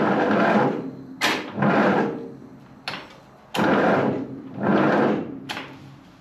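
Ford 8N tractor's starter cranking the engine in short bursts without it catching: a sharp click, then a brief whir of the engine being turned over, three times after the first long burst dies away.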